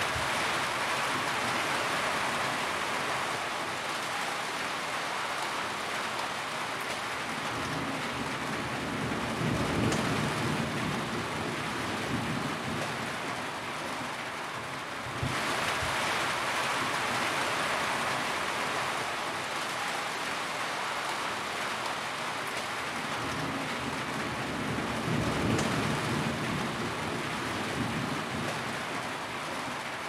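Steady rain drumming on a corrugated metal roof. A low rumble swells up twice, about ten seconds in and again near the end.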